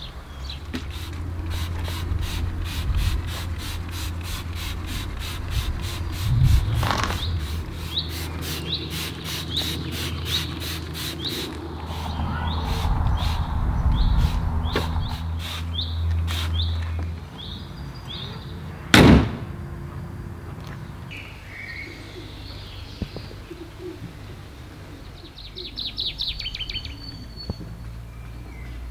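Trigger spray bottle squirting cleaner rapidly, about three squirts a second for some ten seconds, over a steady low hum. A single short, loud burst comes about 19 seconds in, and birds chirp faintly near the end.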